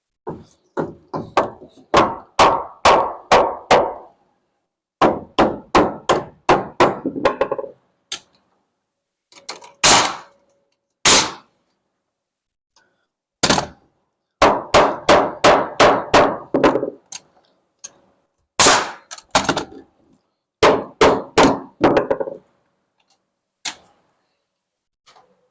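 Hammer driving nails into wood framing: runs of quick blows, about four or five a second, each run lasting a few seconds as a nail goes home, with a few louder single strikes between runs.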